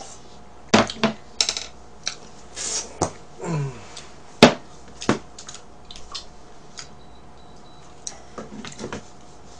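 Eating and tableware sounds: a plastic fork clicking on a cake plate and a drinking glass knocked down on the table, a series of sharp separate clicks and knocks, the loudest about four and a half seconds in, with softer clicks near the end.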